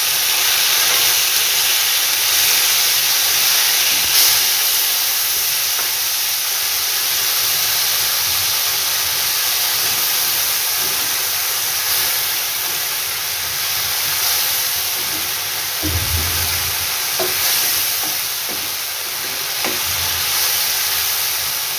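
Tomato and ginger paste sizzling steadily in hot mustard oil in a nonstick frying pan as it is stirred with a spatula, with a few dull knocks in the second half.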